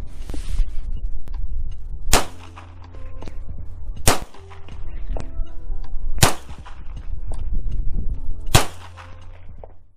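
Four gunshots about two seconds apart, each sharp crack trailing off in a brief echo, over a steady low rumble.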